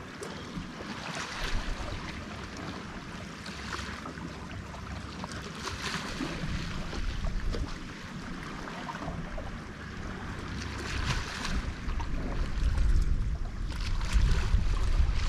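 Small sea waves washing against rocks, swelling in soft surges every few seconds, with wind buffeting the microphone that grows stronger in the last few seconds.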